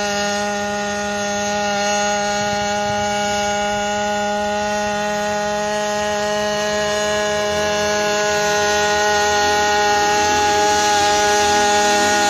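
Hybrid quadcopter hovering, its onboard combustion-engine generator and propellers making a steady hum at one unchanging pitch. It grows louder over the last few seconds as the craft comes closer.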